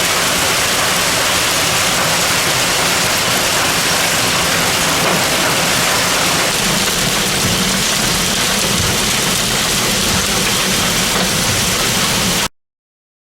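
Heavy rain pouring down in a steady, loud hiss, which cuts off suddenly near the end.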